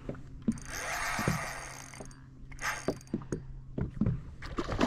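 Fishing reel mechanism whirring and clicking in two short runs, over a steady low hum.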